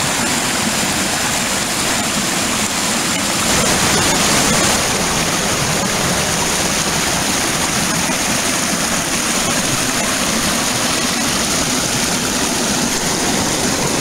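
Small rocky creek rushing and splashing over boulders in little cascades, a steady rush of water that swells briefly about four seconds in.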